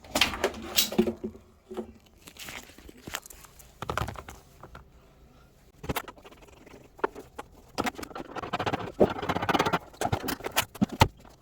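Irregular clicks, scrapes and rattles of a hand tool and loose parts being worked inside a washing machine cabinet, as a hidden screw is loosened and a tube freed. The sounds come in uneven bursts, busiest near the start and again in the last few seconds.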